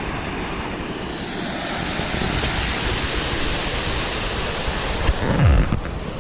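Steady rush of flowing water, with a brief low thump about five and a half seconds in.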